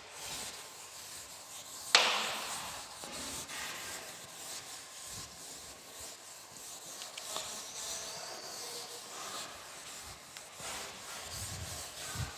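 Faint scratchy rubbing and scraping on a writing surface, with one sharp knock about two seconds in.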